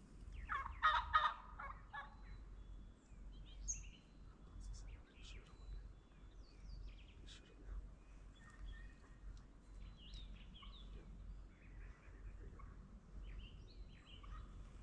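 A wild turkey gobbler gobbles once, a loud rattling call starting about half a second in and lasting over a second. Small songbirds chirp through the rest of the time.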